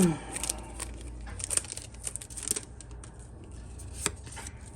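Foil booster-pack wrapper crinkling and trading cards being handled, with a few short sharp crackles.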